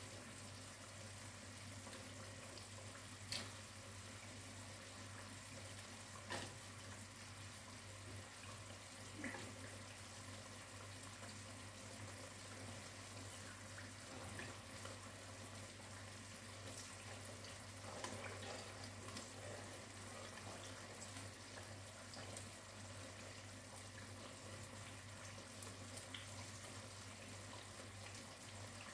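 Sugar syrup boiling in a wok on a gas burner: a faint, steady bubbling and fizzing, with a few faint clicks.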